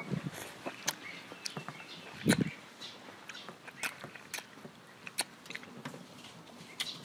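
Close-up eating sounds of ripe mango: wet smacking and sucking clicks as the flesh is bitten and scraped off the peel, with one heavier low thump about two seconds in.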